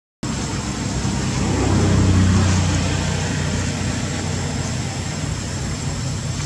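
A motor's low, steady hum in the background, swelling louder about two seconds in and then easing back.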